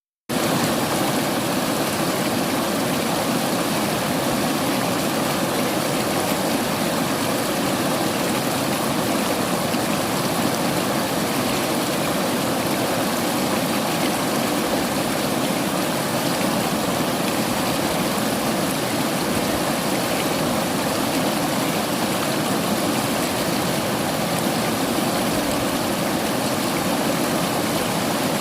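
River water flowing over rocks: a steady, even rush with no pauses.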